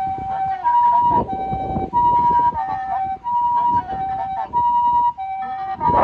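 Japanese ambulance's two-tone siren sounding, alternating between a higher and a lower tone, each held about half a second, with vehicle rumble beneath.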